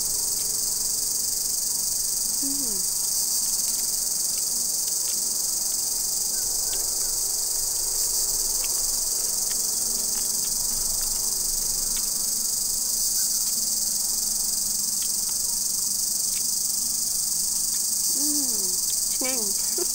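Steady, high-pitched insect chorus, a continuous drone that never breaks.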